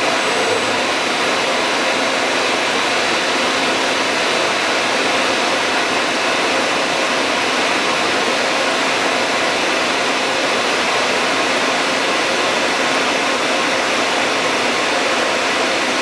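Steady industrial machine noise: a loud, even rush of running plant machinery with faint steady tones in it, unchanging throughout.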